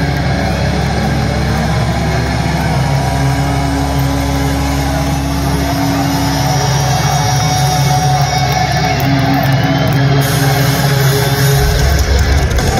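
Heavy metal band playing live in an arena, heard from the stands: loud distorted guitars holding long, low chords.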